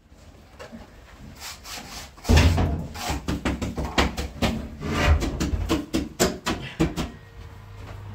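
Quick, irregular scraping and rubbing strokes against a hard surface, beginning with a heavy thud about two seconds in and thinning out near the end.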